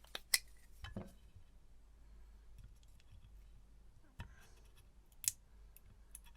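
Small metal parts and a tool being handled while a hard drive is taken apart: a handful of light clicks and taps, the sharpest about five seconds in.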